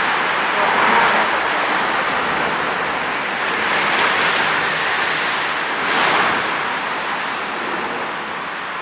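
Steady rushing of wind and churned harbour water, swelling and easing every second or two.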